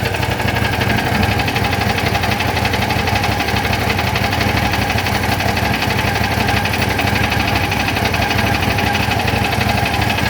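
Small engine running steadily with a fast, even beat. It does not change speed and does not catch or stall.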